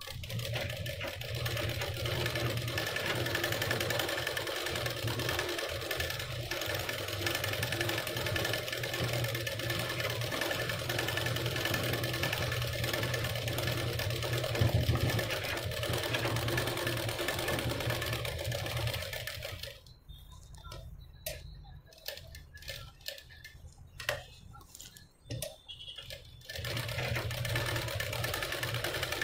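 Sewing machine running steadily, stitching lace trim onto a blouse edge. About 20 seconds in it stops for several seconds, leaving a few sharp clicks, then runs again near the end.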